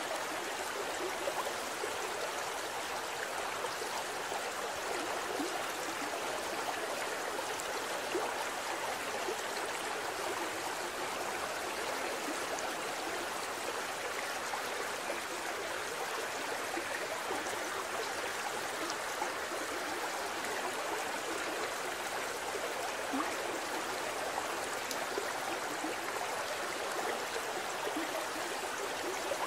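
Forest stream flowing over rocks in small cascades: a steady, even rush of water.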